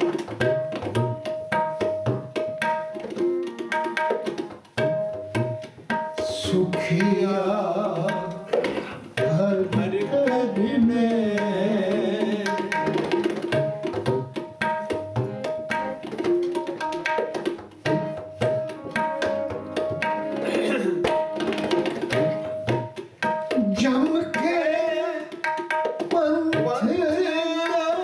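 Sikh kirtan: tabla playing a steady, busy rhythm under held harmonium and keyboard notes, with a man's voice singing in places.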